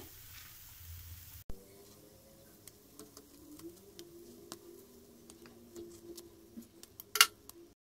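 Faint scattered ticks and taps from cooked paniyarams being lifted out of a cast-iron paniyaram pan onto a plastic plate, with one sharper click near the end.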